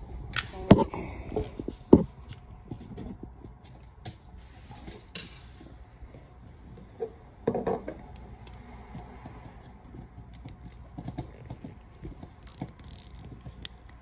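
Clicks and knocks from a plastic GFCI receptacle being handled while copper wire loops are fitted under its terminal screws. The sharpest clicks come about a second in and two seconds in, with another about seven and a half seconds in, and soft ticks and rubbing between them.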